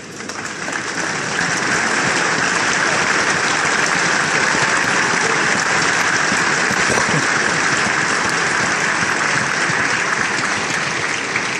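Arena crowd applauding, a dense patter of clapping that builds over the first second or so and then holds steady.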